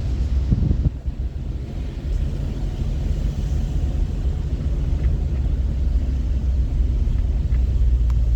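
A vehicle engine running steadily, a low even drone with no change in pitch.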